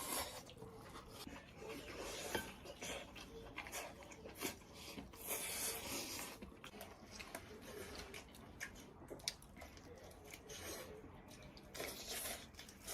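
Quiet eating at the table: chewing, with scattered soft clicks and rubbing of utensils and dishes.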